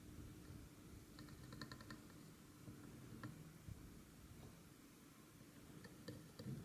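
Near silence broken by faint, small clicks of hand tools: a quick run of about half a dozen about a second in, a single tick a little after three seconds, and a few more near the end.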